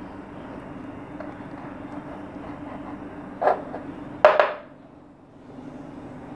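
Kitchen knife cutting through a sandwich on a plastic cutting board: two sharp knocks a little under a second apart about halfway through as the blade strikes the board, the second louder. A steady low hum runs underneath.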